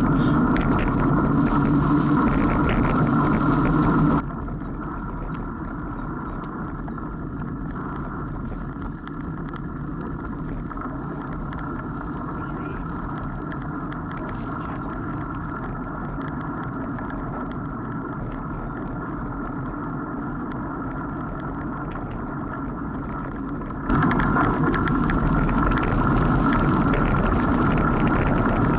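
Steady rumble of a bicycle rolling along a dirt and gravel track, with wind noise, heard from the moving bike. It drops quieter about four seconds in and gets louder again near the end.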